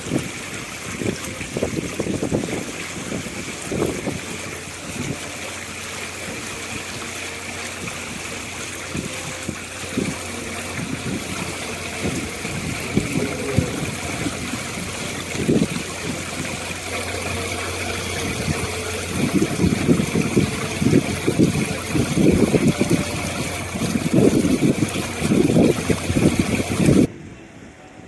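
Natural-gas flame of a fountain burner fluttering in irregular low puffs over a steady rush of water running across the fountain's basin. The sound drops sharply near the end.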